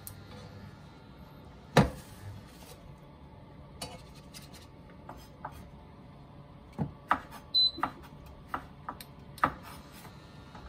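Nonstick frying pan being shifted and jiggled on a glass induction cooktop: scattered knocks and scrapes of the pan, the loudest about two seconds in and a cluster in the second half. A short high beep sounds late on.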